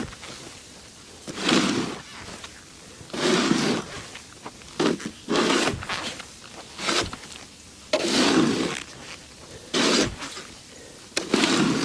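A snow shovel scraping and scooping snow in repeated strokes, about one every second and a half, as a path is cut through deep snow.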